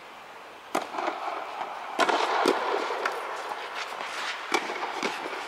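Tennis ball struck by rackets and bouncing on a clay court during a doubles rally, opening with the serve under a second in: a string of sharp, irregularly spaced pops, each ringing on in the echo of an inflated tennis dome.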